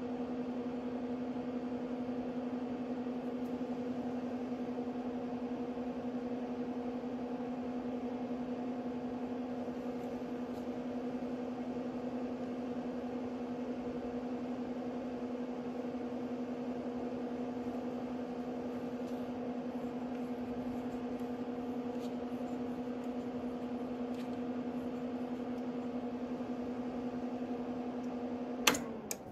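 NX Audio Proton RX5000 MK2 power amplifier switched on and running with a steady, even hum and no audio from its output. Near the end its power switch clicks off and the hum dies away.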